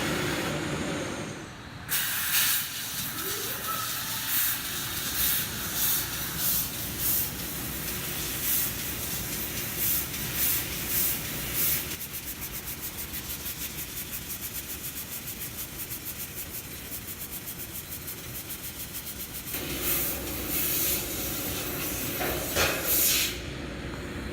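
CNC laser cutter cutting a living-hinge pattern into thin stainless steel sheet, its assist gas hissing in short irregular bursts as the head moves from cut to cut. In the middle stretch it gives way to a rapid, even pulsing, and the irregular bursts return near the end.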